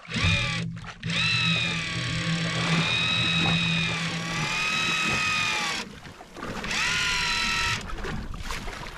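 Electric deep-drop fishing reel winding in line under load: a motor whine in several spells, its pitch rising as each spell starts. A low steady hum runs beneath through the first half.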